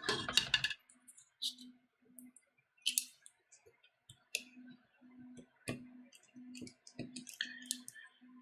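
Small sharp clicks and taps of a screwdriver and plastic parts as a tablet is worked open. In the second half a short low buzz repeats about twice a second.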